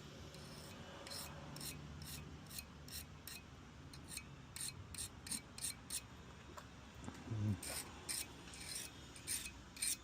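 Cold knife blade being stroked across a diamond sharpener: about twenty short rasping strokes in quick runs, with a brief pause about six seconds in, and louder strokes in the second half.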